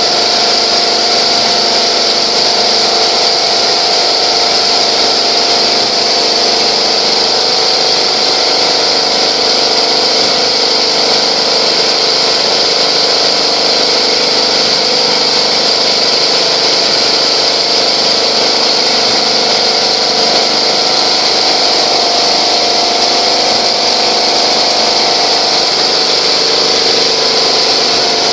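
Multi-needle quilting machine running at high speed: a loud, steady mechanical whir of its needle bars and drive that holds even throughout.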